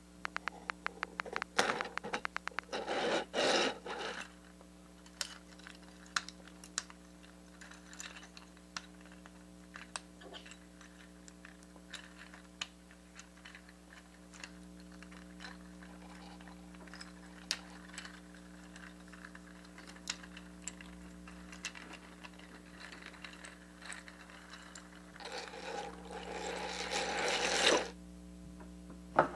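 Light clicks and scraping: a quick run of clicks at the start, a longer scrape at about three seconds and another building near the end, with scattered single clicks between, all over a steady low hum.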